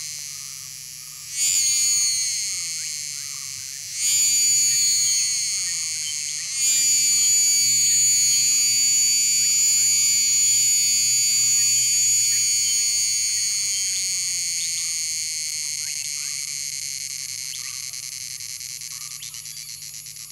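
Cicada song: shrill, high buzzing calls that start loud and fade, two short ones about two and a half seconds apart, then a long call beginning about six and a half seconds in that holds and slowly fades toward the end, with a fainter lower tone sliding down in pitch beneath it.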